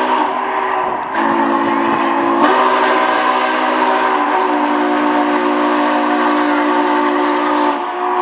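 Union Pacific 844 steam locomotive's whistle blowing a long, loud chord. The chord breaks briefly about a second in and again at about two and a half seconds, then cuts off near the end.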